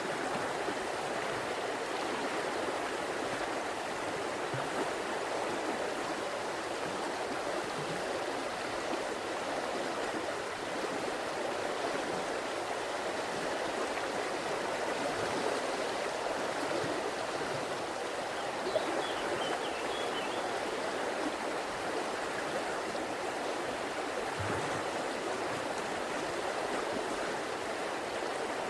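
River flowing: a steady rush of running water.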